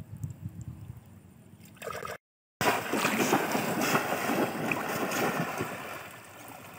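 Shallow water splashing hard as boys wade through it, slamming bamboo polo fish traps down into the water. It starts abruptly after a short dropout about two seconds in and eases off toward the end; before that, only quieter sloshing.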